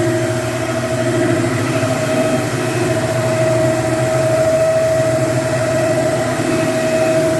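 Hardwood floor-cleaning machine's motor running steadily during a cleaning pass, with a constant mid-pitched hum.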